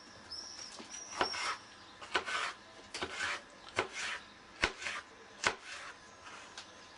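Kitchen knife chopping vegetables on a plastic cutting board: sharp taps of the blade on the board, roughly one every second, with short scraping slices between them.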